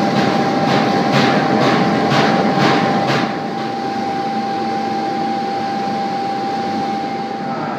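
Gas burner firing a glass furnace: a steady roar with a constant high whine running through it. For about the first three seconds the roar pulses about twice a second, then it settles into an even, slightly quieter roar.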